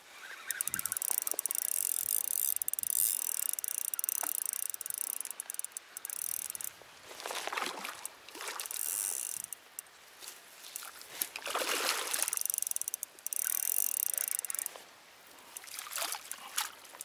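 Spinning reel being cranked to retrieve a lure: a fast, high-pitched clicking whir in two stretches. Between them come two louder rushing noises, about four seconds apart.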